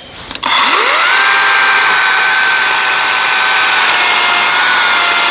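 Battery-powered chainsaw with a 16-inch bar and low-kickback chain spinning up about half a second in and running at steady full speed, a high electric-motor whine over the loud rasp of the chain, while making a small cut.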